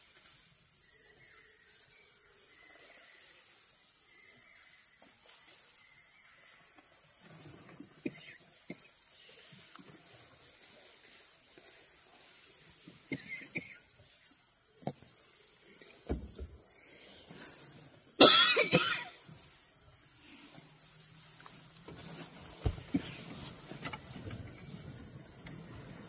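A steady, high-pitched chorus of insects. A person coughs loudly a few times in quick succession about two-thirds of the way through, and there are a few faint clicks.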